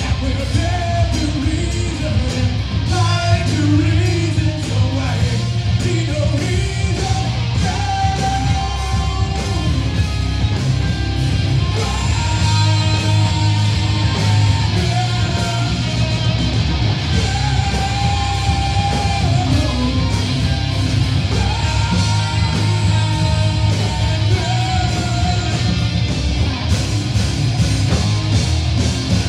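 Heavy metal band playing live: electric guitars and drums with a singer holding long sung notes over them.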